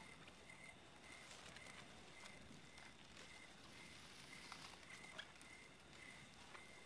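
Near-silent outdoor ambience: a faint, short chirp repeats evenly about every half second, with a few soft clicks.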